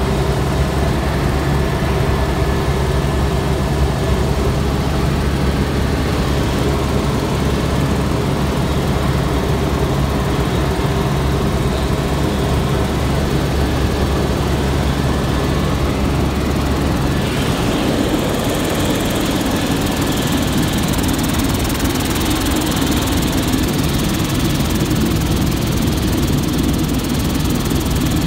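Light propeller plane's engine and propeller running steadily, heard from inside the cabin as a loud drone with a rushing of air. About two-thirds of the way through the sound shifts: the low steady hum weakens and the airy rushing grows.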